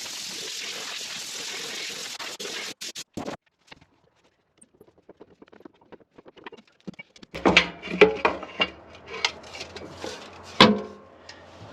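A steady hiss, then after a short gap a run of metal clanks and knocks, loudest about eight and ten and a half seconds in, as a skid steer's chain case is worked open with hand tools.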